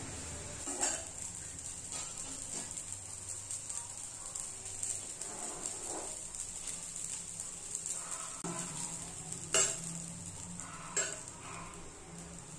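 Dosa batter sizzling steadily on a hot non-stick tawa, with a few sharp scrapes of a ladle and a flat spatula against the pan, the strongest about a second in and twice near the end as the dosa is loosened and rolled.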